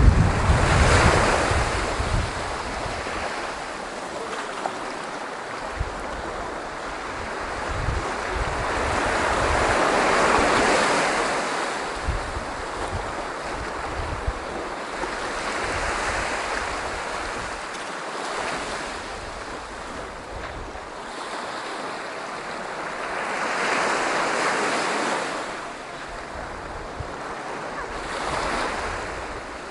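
Sea waves breaking and washing up a beach, swelling and falling back every several seconds. Wind buffets the microphone with low rumbles, heaviest in the first couple of seconds.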